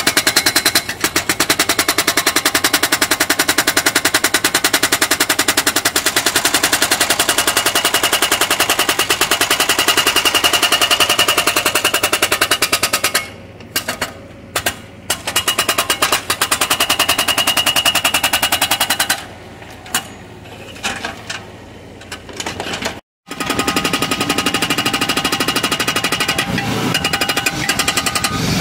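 GPM110 hydraulic hammer on a Bobcat mini excavator breaking thick asphalt: a loud, fast, steady run of blows. It stops twice for a few seconds, firing only short bursts, then starts hammering again.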